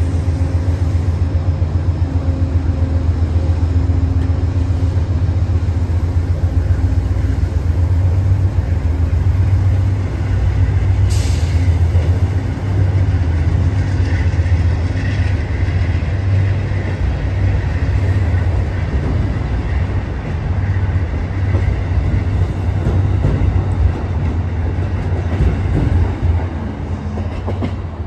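Amtrak passenger coaches rolling past at low speed as the train pulls out, a loud, steady rumble of wheels on rail with a sharp click about eleven seconds in. The rumble drops a little near the end as the last car goes by.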